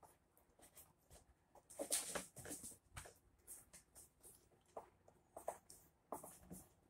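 Faint crinkling and rubbing of vinyl wrap film being pressed and worked by hand over a plastic car interior trim piece, in short irregular rustles, the loudest about two seconds in.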